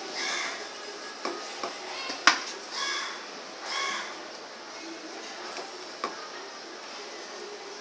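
Hands pressing and turning a stuffed pomfret in rice flour on a steel plate: soft rubbing with a few clicks against the metal, the sharpest about two seconds in. Three short calls sound in the background in the first four seconds.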